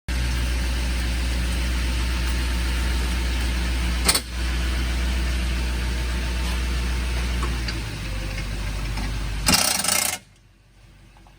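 A vehicle engine running steadily with a low hum. There is a sharp click about four seconds in and a short loud burst of noise near the end, then the sound cuts off suddenly.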